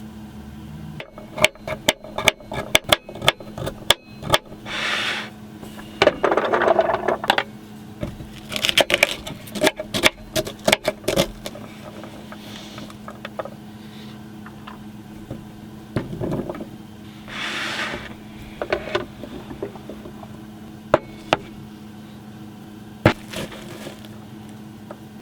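Food-preparation handling noise: a quick run of clicks and knocks, then several short rustling, scraping passages and a few single sharp taps, over a steady low hum.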